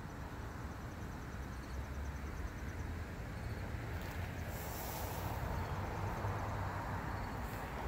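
Outdoor ambience: a steady low rumble under a faint hiss, with faint rapid insect chirping in the first few seconds. The hiss briefly swells about four and a half seconds in.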